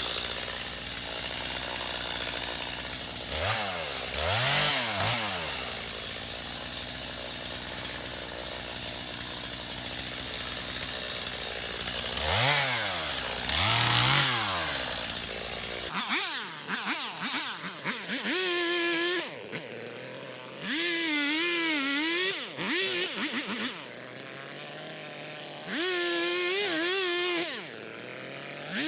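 Stihl MS250 two-stroke chainsaw running and being revved up and down as it cuts, its pitch rising and falling with each rev. From about halfway, several short bursts of high revving follow one another.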